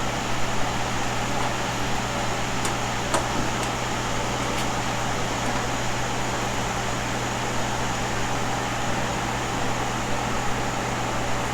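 Steady mechanical hum with a constant low drone, with a few light clicks a few seconds in.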